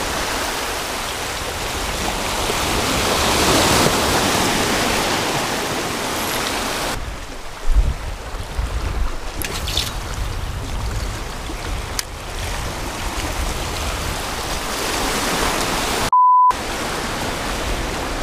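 Small waves washing and surging over a lava-rock shoreline, swelling a few seconds in, with a low thump about eight seconds in. Near the end, a single short high-pitched beep cuts in, the loudest sound.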